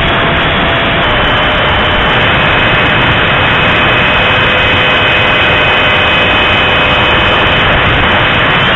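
A 64 mm electric ducted fan model jet in flight, heard from its wing in the airstream: a loud steady rush of fan and wind noise with a thin steady whine running over it.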